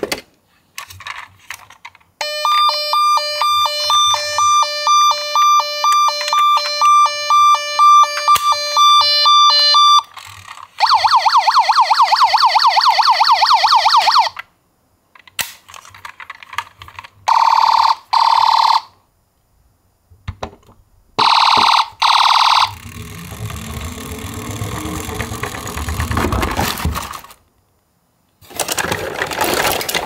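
Electronic sirens from toy ambulances sounding one after another: a two-tone hi-lo siren for about eight seconds, then a fast warbling yelp for about four seconds, then shorter siren bursts. Later comes a few seconds of lower rumbling noise.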